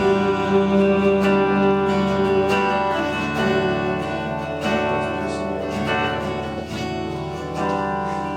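Instrumental worship music: acoustic guitar strumming over sustained held chords, with no singing.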